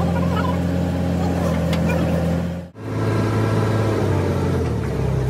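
Engine running steadily in a low, even drone. About two and a half seconds in the sound drops out for an instant and comes back as a similar steady engine drone at a slightly different pitch.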